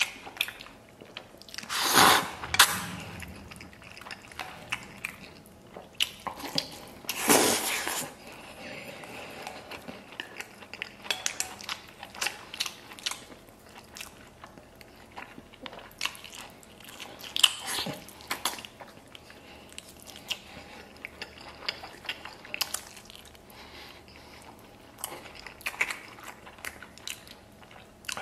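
A man eating braised lamb and noodles close to the microphone: two loud slurps, about two and about seven seconds in, then steady chewing and biting with many small wet clicks.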